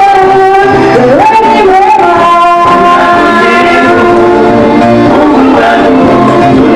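Church worship music: voices singing a melody over instrumental accompaniment, played loud and continuous.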